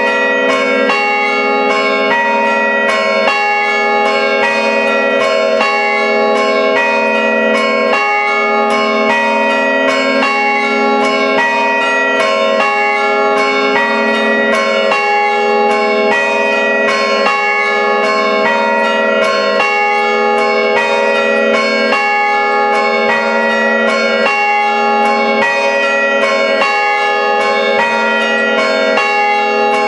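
Five church-tower bells, sounded by rope pulls, ringing a traditional chime. The strikes come in a quick, steady rhythm, and each bell's tone rings on and overlaps the next.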